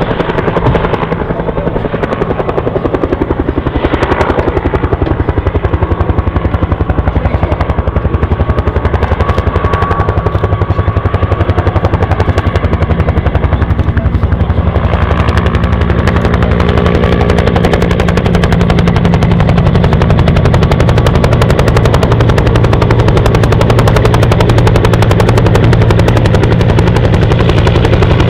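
Bell UH-1 Iroquois (Huey) helicopter in flight, its two-bladed main rotor beating in a fast, steady rhythm. It grows louder toward the end as the helicopter turns toward the listener.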